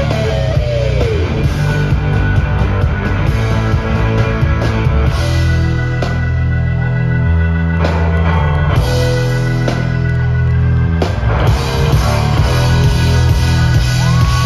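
Live rock band playing loud: electric guitar over drum kit and bass, with sliding, bending guitar notes near the start and near the end, recorded from the audience in a large open-air crowd.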